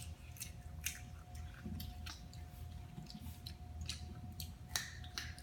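Children chewing raw carrot, a string of irregular crisp crunches, over a faint steady hum.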